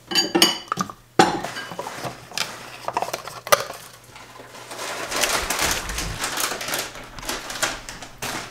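Ceramic dishes clinking as granola is tipped from a small cup into a ceramic bowl, with one sharp clink about a second in, followed by a stretch of rustling and handling noise.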